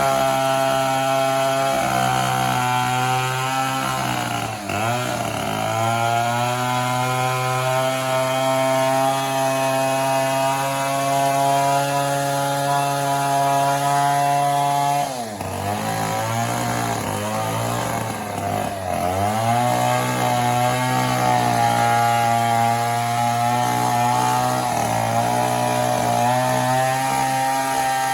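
Chainsaw running at high revs while cutting into a mahogany trunk. The engine note drops briefly and climbs back about four and a half seconds in, and again around fifteen and nineteen seconds.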